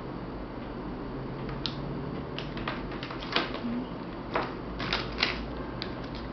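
A handful of sharp, irregular clicks and light knocks from a USB cable and its plug being handled, starting about a second and a half in, with the loudest near the middle and toward the end.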